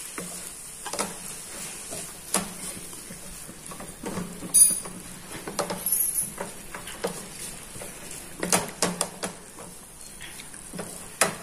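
Wooden spatula stirring a chicken-and-vegetable stir-fry filling in a frying pan: irregular scrapes and soft knocks against the pan, one sharper knock about halfway, over a faint sizzle.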